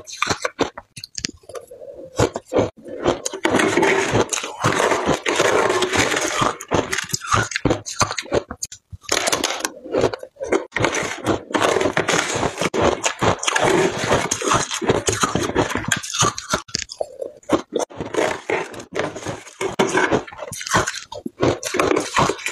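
Close, loud crunching and chewing of shaved ice in the mouth, irregular and continuous with brief pauses, along with a metal spoon scraping more ice out of a plastic tub.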